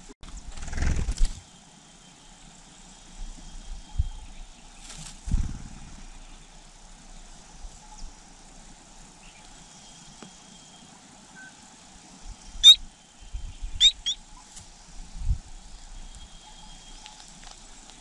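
Three brief, high sweeping bird chirps in the second half, a single one and then a quick pair, over low thumps and rustling of movement in the nest.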